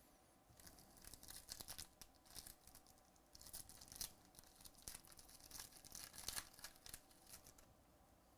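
A shiny plastic trading-card pack wrapper being crinkled and torn open by hand, a run of crackling rips with the loudest near the middle and late on, stopping shortly before the end as the cards come out.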